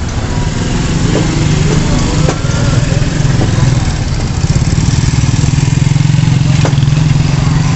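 Small motorcycle engines running close by, a steady low drone that grows louder in the second half as a motorcycle-sidecar tricycle passes.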